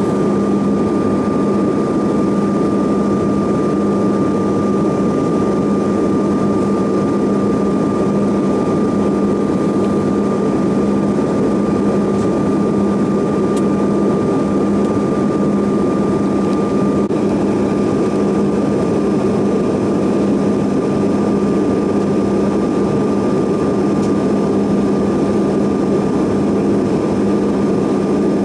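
Steady in-cabin drone of a Bombardier CRJ900 airliner in flight on descent. The rear-mounted GE CF34 turbofans and the airflow make a constant rushing noise, with a steady low hum and a thin, higher whine held throughout.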